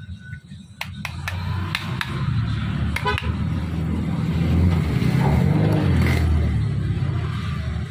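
Electric fan running: a steady low motor hum with air noise over it, growing louder from about two seconds in. A few sharp clicks come in the first three seconds.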